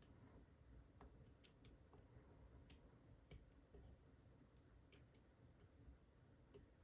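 Faint, irregular clicks of a flag pick working the spool pins of a Mul-T-Lock Garrison padlock under heavy tension, while a hard-to-set pin is being picked.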